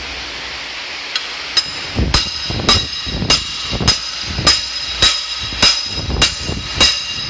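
Hammer striking the end of a long steel driver bar in steady blows, about one and a half to two a second, each with a bright metallic ring, driving a new bushing into the engine block's bore. The first second or so is a steady hiss before the blows begin.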